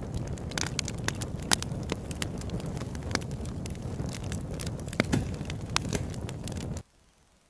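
Wood logs burning in a fireplace: a steady low rumble of flames with frequent sharp crackles and pops. It cuts off suddenly shortly before the end.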